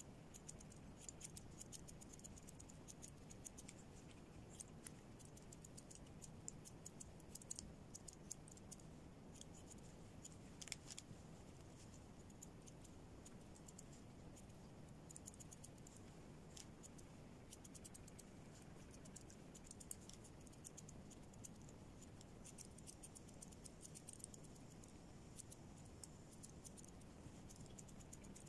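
Grooming scissors snipping through a dog's thick coat: faint, irregular quick snips, some in short runs.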